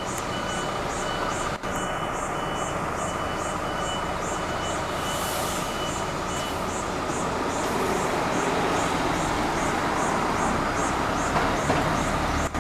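A MAN fire engine running as it rolls out of the station bay, with a high warning beeper sounding two to three times a second. A short hiss of air comes about five seconds in.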